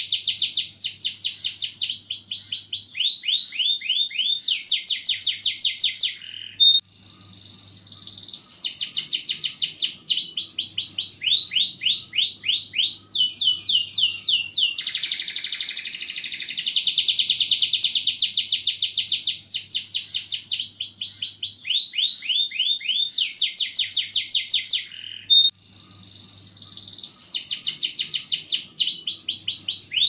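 Domestic canary singing a long, continuous song of rapid trills. Each run of quick repeated notes shifts in speed and pitch, and the song breaks off briefly twice.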